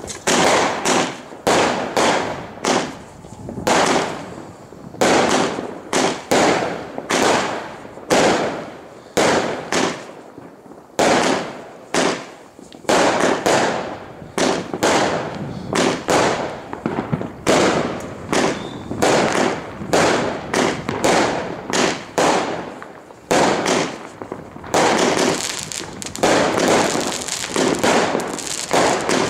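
Fireworks going off in a steady run of sharp bangs, one or two a second, each with a short fading tail. Near the end they merge into denser crackling with more hiss.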